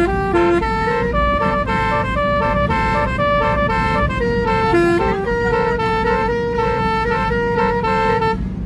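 Telolet horn, a multi-tone musical vehicle horn, playing a quick melody of short notes over steady road and engine noise; the melody stops near the end.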